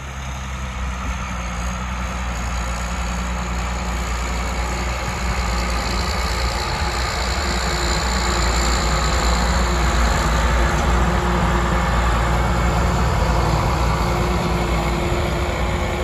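Ford 8240's turbocharged six-cylinder engine working hard under load through a straight-pipe exhaust while pulling a four-furrow plough. It grows louder as the tractor draws near and passes, with a high turbo whistle over the engine note, strongest in the middle.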